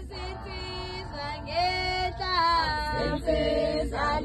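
Female voices singing without instruments, in long held notes that slide between pitches.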